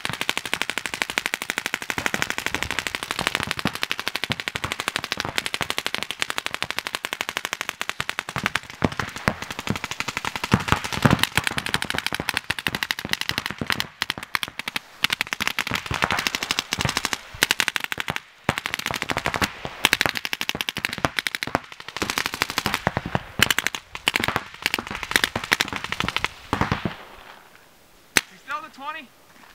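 Paintball markers firing long, rapid strings of shots, a dense continuous rattle. It dies away about three seconds before the end, leaving a few single shots.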